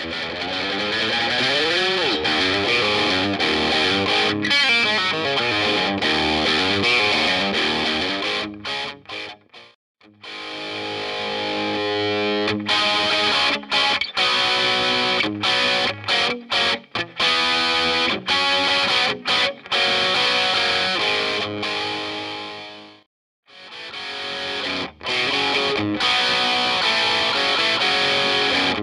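Electric guitar played through a Taptronix Appetone overdrive pedal, with a distorted, overdriven tone. It starts with sustained notes and a string bend, then choppy stop-start chords, with two brief pauses in the playing.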